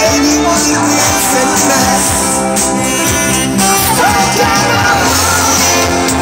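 Live band playing loud amplified rock-style music with electric guitar and bass, and a voice singing over it.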